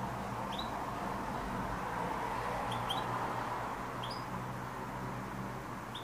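Domestic canary giving short, high, rising chirps: about six scattered notes, some in quick pairs, rather than a full song. Under them runs a steady hum and hiss of background noise.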